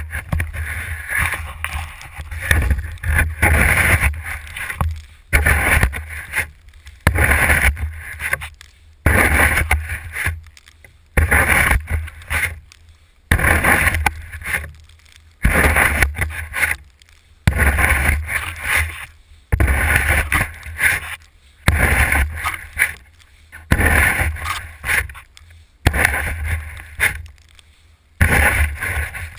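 Plastic snow-pusher shovel being shoved along snowy pavement: the blade scrapes over the paving and crunches through snow in repeated strokes, about one every two seconds, heard from a camera mounted on the shovel's shaft.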